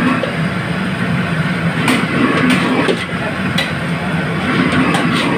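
Gas wok burner running with a steady loud rumble under a large steel wok, while a metal ladle stirs crab pieces in it with several sharp clanks against the pan.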